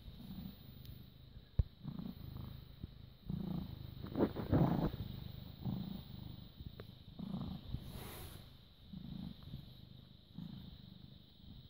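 British Shorthair cat purring close to the microphone, the purr swelling and fading with each breath, about once a second. A louder rustling burst comes about four seconds in.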